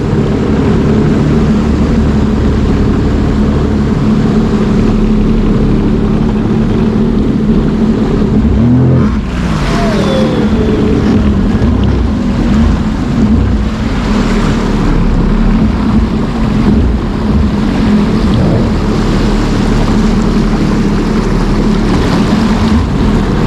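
Sea-Doo personal watercraft engine running steadily, its pitch briefly dipping and sliding about nine seconds in.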